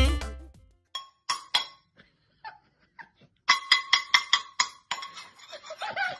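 Background music fading out, then a series of sharp clinks with a short ringing tone, a few scattered and then a quick run of about eight past the middle. A faint wavering pitched sound follows near the end.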